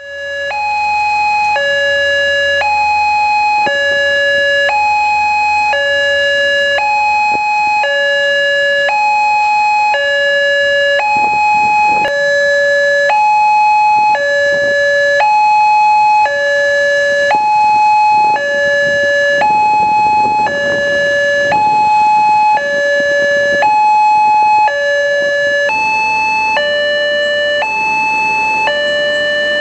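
Railway level-crossing warning siren sounding a steady two-tone hi-lo alarm, each note held about a second in turn. Both notes shift slightly higher near the end.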